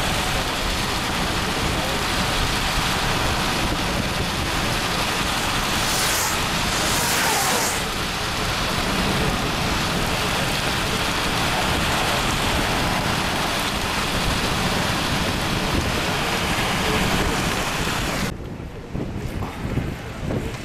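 Steady rushing wind-and-rain noise in a thunderstorm. About eighteen seconds in it changes abruptly to lower, gusty wind buffeting the microphone.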